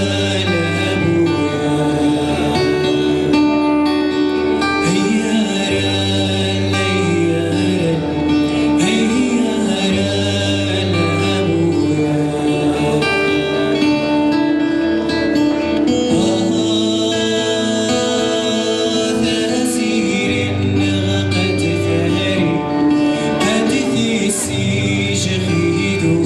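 A man singing to his own acoustic guitar, a slow melody with long held notes and sliding pitch over steadily played chords.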